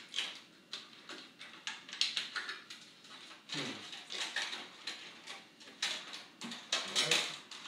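Irregular clicks, taps and rustles of hands working inside an opened stereo receiver, pulling wire connectors off its circuit boards.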